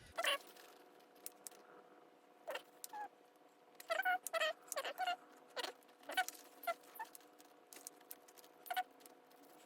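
Fishing tackle being rummaged through by hand: plastic bags and lures rustling and clicking in short, irregular bursts, some of them squeaky.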